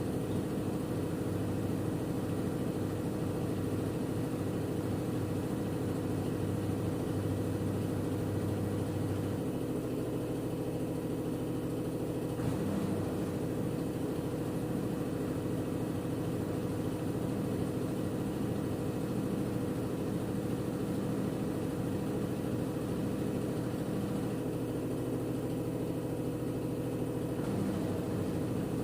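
LG F10B8MD washing machine drum spinning at a steady speed in its final 800 rpm spin, with a steady motor hum and whine.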